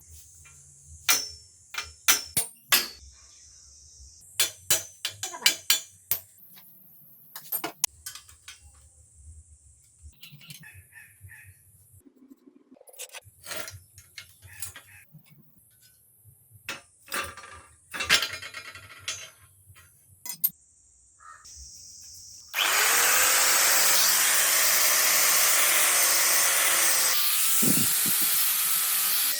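Scattered sharp clicks and knocks of handwork with tools, then about three-quarters of the way in a power tool starts and runs loud and steady.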